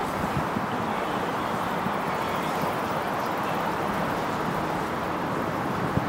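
Steady, even rush of road traffic, with no single vehicle standing out.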